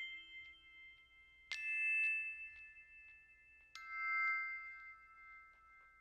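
Soft background music of slow, bell-like struck notes: two notes, about a second and a half in and again near four seconds, each ringing on and fading.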